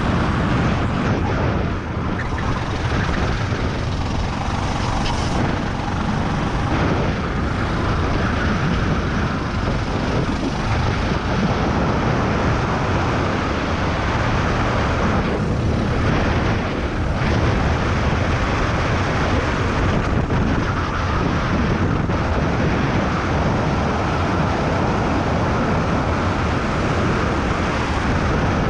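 Racing kart engine running hard at race speed, heard from onboard with wind rushing over the microphone.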